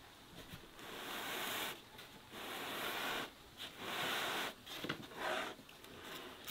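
Hands rubbing and brushing over the dry, floury crust of a large round loaf of homemade walnut bread: a series of scratchy rustles, each under a second long, then the loaf is tipped up off its wooden board near the end.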